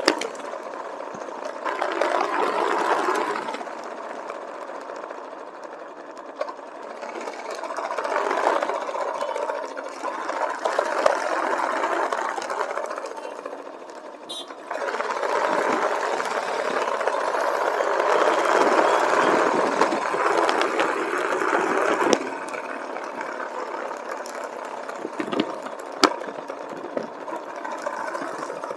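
Motorcycle engine running during a ride, growing louder and quieter by turns, with a sudden louder stretch about halfway through that drops off abruptly near three-quarters of the way.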